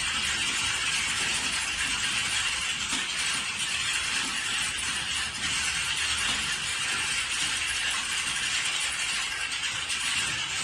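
Many computer keyboards being typed on at once: a dense, steady clatter of keystrokes with no gaps.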